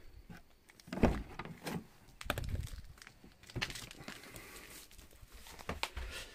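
Footsteps and knocks from a door being opened and walked through, with a loud thump about a second in and further thumps and clicks after.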